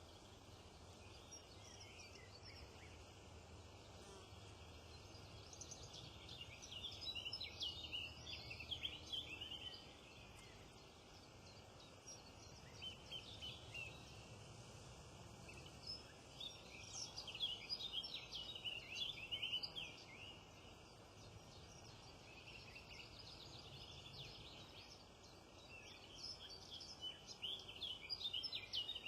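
Small songbirds singing in three bursts of quick, high twittering chirps, over a faint steady low rumble.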